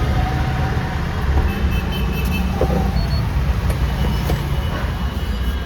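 A motor vehicle's engine running with a steady low rumble, under a general haze of traffic noise.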